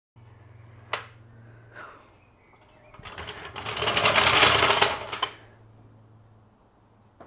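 A burst of rapid mechanical clicking lasting about two seconds, growing louder and then dying away, over a steady low hum. There are a couple of single clicks before it.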